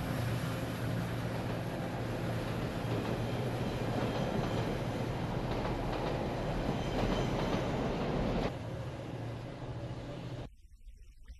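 Train running on the rails: a steady rumble of wheels on track with a low hum underneath. It drops a little near the end and then cuts off suddenly.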